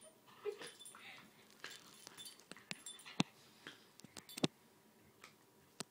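A puppy playing tug of war with a rope toy, making a few brief soft dog sounds, with scattered sharp clicks and knocks from the play.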